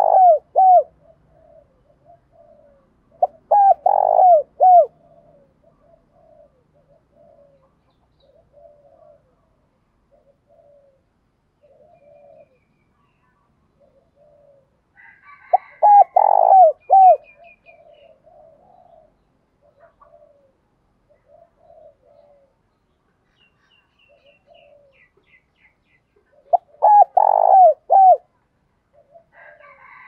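Spotted dove cooing: four loud phrases of several quick, falling notes, roughly ten seconds apart, with fainter coos in the gaps. This is the 'giọng thổ' voice that keepers prize in a decoy dove for calling wild doves in to fight.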